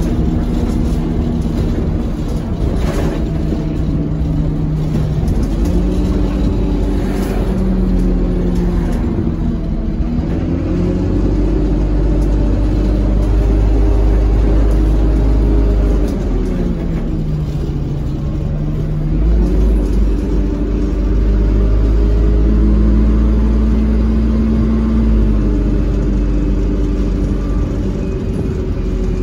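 Dennis Dart SLF single-deck bus heard from inside the saloon: its diesel engine note rises and falls in pitch as the bus pulls away, runs and slows. The note drops low for a few seconds past the middle, then climbs again, over a steady rumble of the moving bus.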